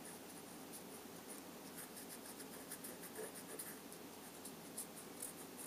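Faint, irregular light scratching of a chalking tool's small tip rubbed in short strokes on cardstock, chalking around a paper-pieced eye.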